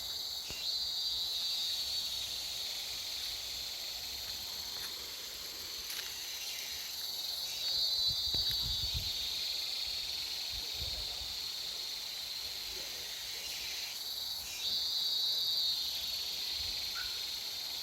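Insects in a forest calling in a steady, high-pitched chorus that swells louder three times, for a second or two each.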